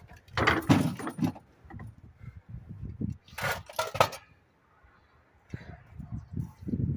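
Metal pieces clinking and clattering as they are handled, in two short clusters of sharp knocks about half a second in and again about three and a half seconds in, with softer knocking and rustling near the end.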